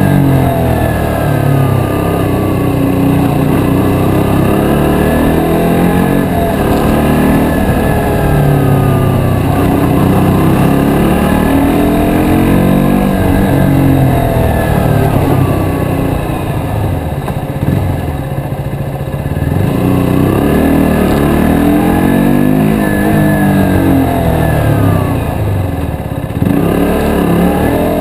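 KTM Duke 125's single-cylinder four-stroke engine heard from the rider's seat, revving up and easing off again and again at low speed inside a covered car park. It is quieter for a few seconds past the middle and picks up again near the end.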